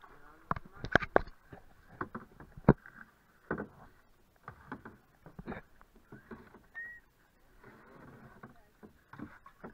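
Irregular knocks and clatter of paddles against a plastic canoe hull while paddling, the loudest in the first three seconds, with lighter knocks and water sounds after.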